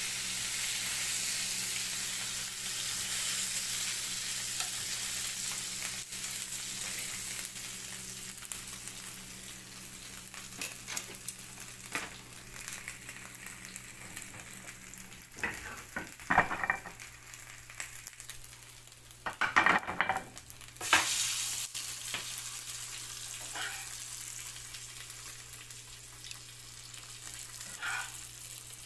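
Food sizzling in oil in a frying pan, the hiss easing off over the first ten seconds or so. A few short clatters come about halfway through.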